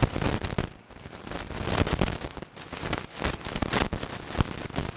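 Microphone interference: dense crackling and popping static, with a brief dropout about a second in and another midway.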